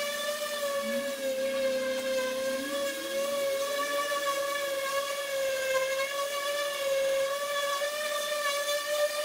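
Electric orbital sander running with a steady high whine as it sands bare aluminum sheet, the pitch wavering slightly as the pad is pressed and moved. A fainter, lower hum rises in pitch and fades during the first few seconds.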